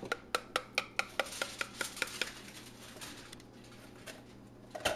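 A kitchen utensil tapping rapidly against a dish, about four or five sharp clicks a second for the first two seconds, then quieter, with one louder knock near the end.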